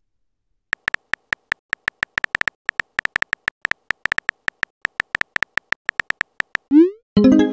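Phone keyboard typing sound, short tapping clicks about six a second as a chat message is typed out. Near the end a quick rising blip and a short chime as the message is sent.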